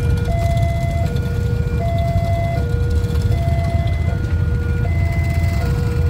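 A steady two-tone hi-lo signal, like a siren, alternating between a lower and a higher note about every three-quarters of a second, over a constant low rumble.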